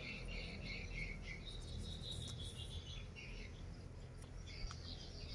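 Faint high chirping from a small animal: quick short chirps, about five a second, then a longer held trill, with scattered chirps near the end, over a steady low rumble.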